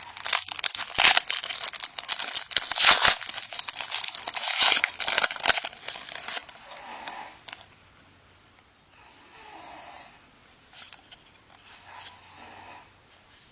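Foil Yu-Gi-Oh booster pack wrapper being torn open and crinkled, with many sharp crackles. It is loud for the first six seconds or so, then goes much quieter, leaving only faint soft sounds.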